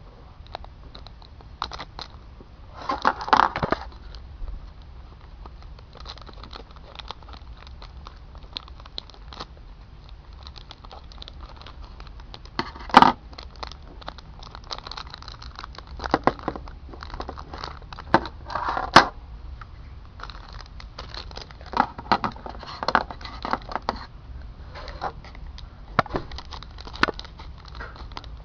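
Plastic packaging of a Beyblade spinning-top toy crinkling and rustling as it is handled and opened, with scattered sharp clicks, two of them loudest about halfway through and two-thirds of the way through.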